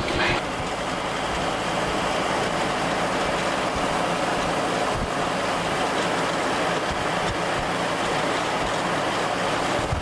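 Motor vehicle driving, heard from inside: a steady drone of engine and road noise with a low hum underneath.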